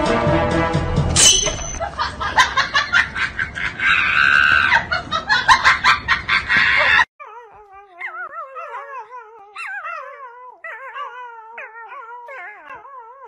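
About seven seconds of rapid, irregular dog barking mixed with a woman's shriek, which cuts off suddenly. It is followed by a puppy whining in a series of wavering, falling high-pitched cries.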